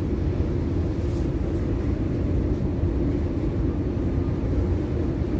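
Steady low rumble and hum of a large ship's machinery, heard from inside the wheelhouse.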